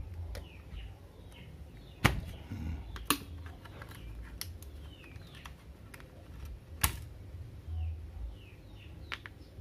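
Hard plastic clicks and snaps as the swivel-cord end of a hair straightener's housing is pried open with a metal pick. There are scattered small clicks, with three sharper cracks about two, three and seven seconds in.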